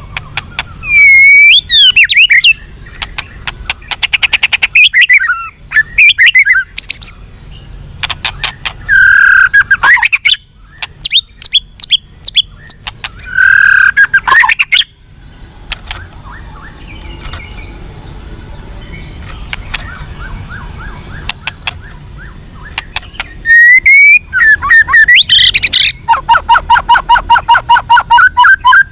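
White-rumped shama singing a loud, varied song: quick sweeping whistled phrases and sharp clicking notes come in bursts, with softer chattering between them. Near the end it breaks into a fast, evenly repeated stuttering series of notes.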